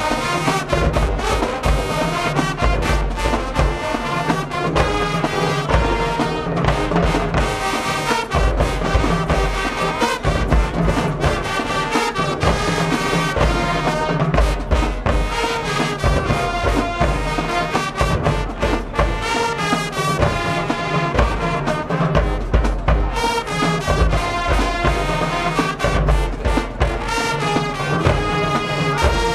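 High school marching band playing live, brass section with trombones and trumpets carrying the tune over steady drum beats.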